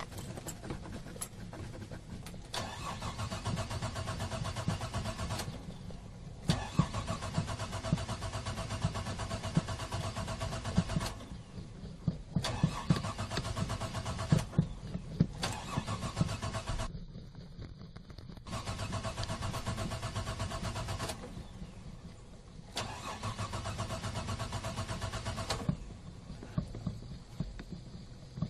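Car engine being cranked by its starter motor in about five separate tries of three to four seconds each, with short pauses between, as the gas pedal is pumped. The engine does not catch.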